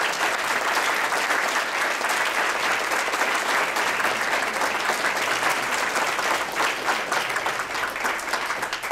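Audience applauding: dense, steady clapping of many hands that thins out near the end.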